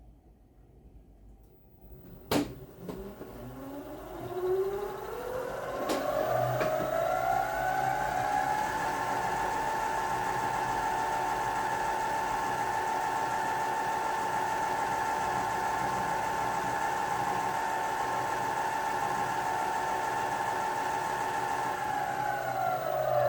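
Sieg C2-400 mini lathe's 0.37 kW three-phase motor and M5 belt drive, run by a Teco VFD: after a click a little over two seconds in, the whine rises in pitch as the drive ramps up over several seconds, holds steady, then falls as it ramps down near the end.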